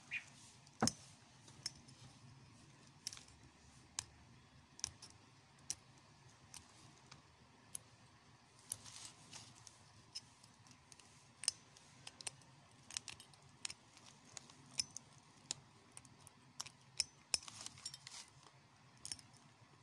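Sharp, irregular metallic clicks and a few brief scrapes from hand work on an alternator rotor's broken field-coil wire, with metal claw-pole parts and a small tool knocking together as the wire is handled.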